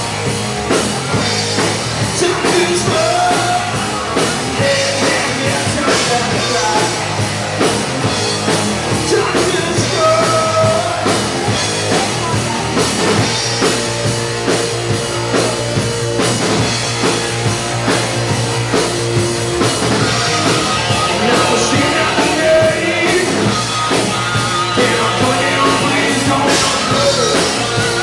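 Live rock band playing loudly: drum kit and electric guitar, with a singer's voice over them.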